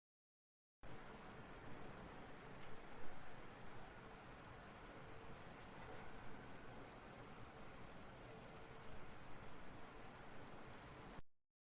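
Grasshopper stridulation: a continuous high-pitched insect buzz that starts suddenly about a second in and cuts off abruptly near the end.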